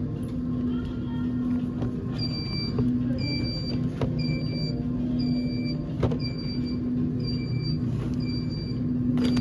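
Grocery store background: a steady low hum, and from about two seconds in a short high beep that repeats a bit more than once a second.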